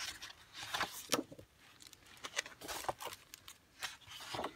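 Sheets of scrapbook paper rustling and a clear plastic sleeve crinkling as they are handled and turned over, in a series of short, irregular rustles.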